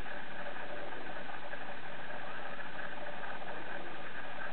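Steady, even machine hum with no breaks.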